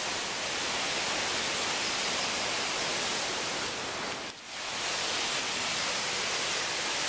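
Waterfall rushing steadily, an even hiss of falling water that dips briefly about four seconds in and then carries on.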